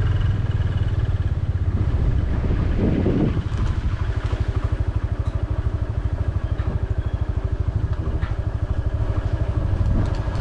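A motorcycle engine idling close by, running with a steady, even beat.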